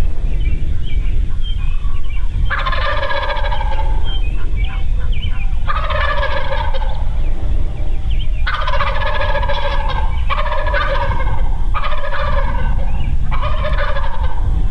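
Wild turkey tom (longbeard) gobbling repeatedly: about six rolling gobbles, each about a second long, in quick succession from a couple of seconds in, over a steady low rumble.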